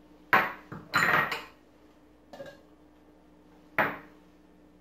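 Small glass bowls knocking and clinking against a container as spices are tipped out of them: a few short, sharp knocks, the loudest near the end.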